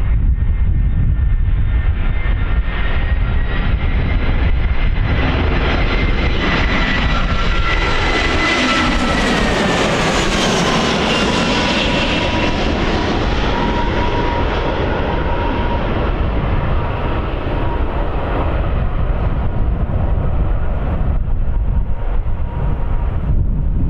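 Jet airliner on landing approach passing close by: the engine whine swells to its loudest about halfway through, then falls in pitch as it passes and fades off. Strong wind rumbles on the microphone underneath.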